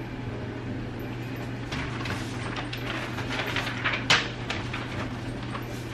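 Marker pen strokes and paper handling as an answer is marked on a paper sign: a run of short scratchy strokes from under two seconds in, the sharpest about four seconds in, over a steady low hum.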